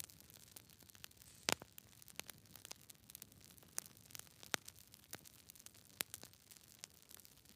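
Burning wood crackling: a quiet hiss with an uneven run of small snaps and ticks, and sharper pops about one and a half, four and a half and six seconds in.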